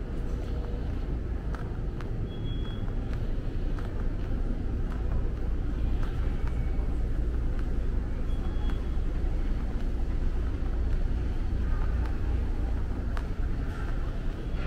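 Steady low rumble of a large, near-empty shopping mall's indoor ambience, with a few faint scattered clicks and two brief faint high beeps.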